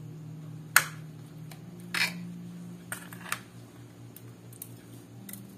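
Abalone shells being set down on a ceramic plate: a sharp clack a bit under a second in, then a few softer knocks and clinks, over a steady low hum.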